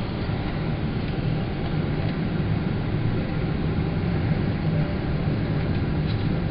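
Steady low rumble of a Boeing 777 heard inside the passenger cabin: engine and airflow noise.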